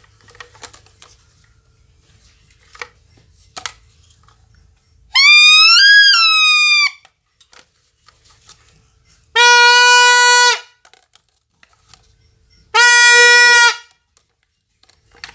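Three loud horn blasts. The first swoops up and back down in pitch, and the next two are shorter, steady and lower, with short gaps between. Faint clicks lie between them.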